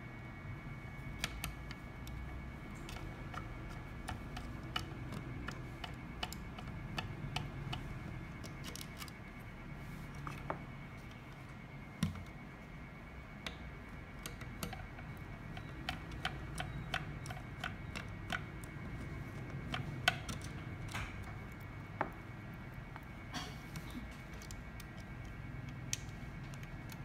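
Small irregular clicks and scrapes of a hex key working the screws in a speaker's plastic base, with a few sharper taps, over a faint steady hum.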